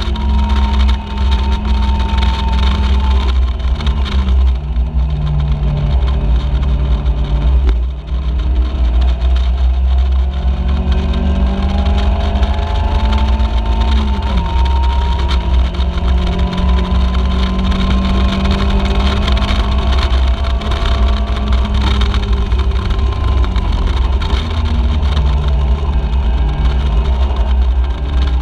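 Caterham Seven race car's four-cylinder engine heard from the open cockpit at racing speed, its pitch climbing under acceleration and dropping back several times through gear changes and lifts for corners. A steady rush of wind and road noise runs underneath.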